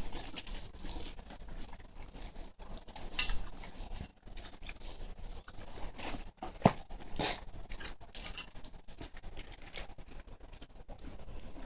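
A horse eating feed and hay: irregular crunching and rustling as it chews, with a few sharper crackles about six to seven seconds in.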